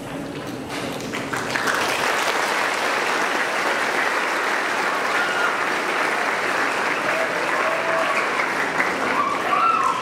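Audience applauding steadily, swelling about a second or two in, with a few voices calling out over it near the end.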